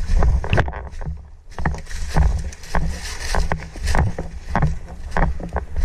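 A player's footsteps at a steady pace, a thud roughly every 0.6 s, with gear rustling and a low rumble on the body-worn microphone.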